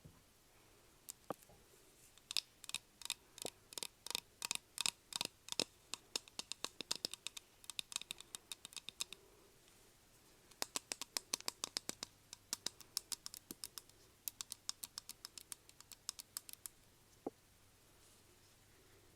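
Rapid light clicking taps, several a second, in two long flurries with a short pause around the middle.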